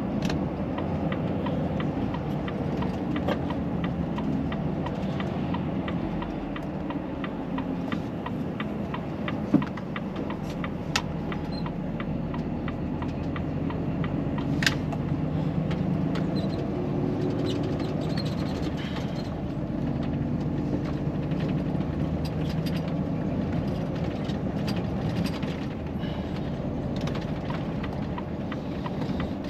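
Volvo FH 540 truck's 13-litre straight-six diesel running steadily under way, its pitch shifting slowly, with a few sharp clicks or knocks now and then.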